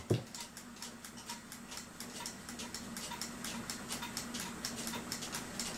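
Mechanical clock ticking steadily and fast, about five ticks a second, over a low steady hum.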